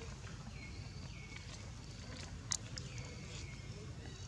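Baby long-tailed macaque crying: about four short high-pitched squeals, each dropping in pitch and then holding briefly. A sharp click about halfway through is the loudest sound.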